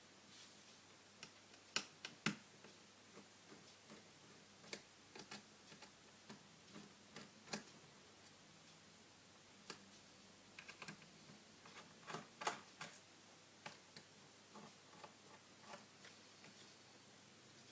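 Irregular small clicks and taps against near silence, a few louder ones about two seconds in and around twelve seconds in: small tools and plastic parts being handled while taking apart an Asus Zenfone 5 smartphone.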